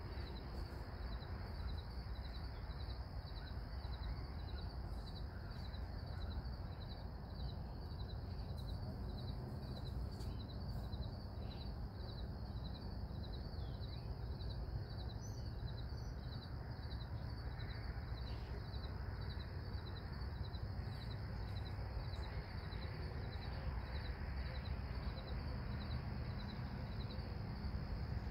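An insect chirping steadily in an even rhythm, about two chirps a second, over a steady low background rumble of outdoor noise.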